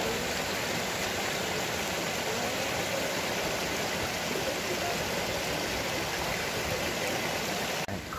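Small mountain stream rushing and splashing over rocks in shallow cascades, a steady even rush of water that breaks off abruptly near the end.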